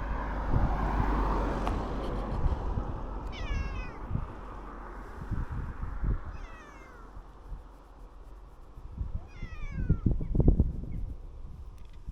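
An animal giving three short, falling mewing calls, about three seconds apart, over a low rumble and a few dull thuds.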